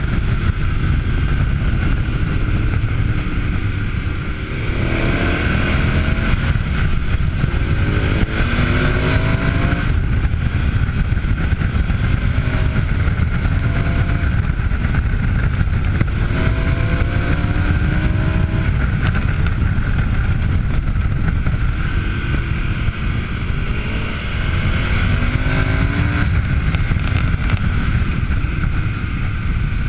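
KTM V-twin adventure motorcycle under way, its engine note climbing several times as it accelerates, over heavy wind rumble on the microphone.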